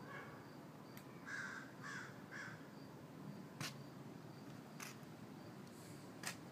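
A bird calling outdoors: three short, harsh calls in quick succession, about half a second apart, with a few faint sharp clicks scattered around them.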